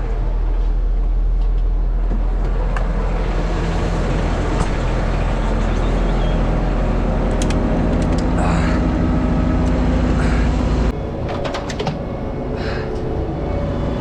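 Large diesel engine of a mobile crane running steadily at raised revs while hoisting a load, dropping back to a lower, quieter note about eleven seconds in.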